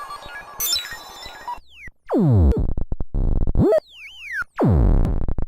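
Roland System-100 software synthesizer playing: a busy pattern of short, bright notes, then, from about a second and a half in, big swooping pitch sweeps that mostly dive from high to very low, with a few rising ones between them.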